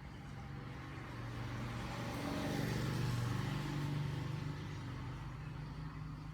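A motor vehicle passing by: its engine hum and road noise swell to a peak about three seconds in, then fade away.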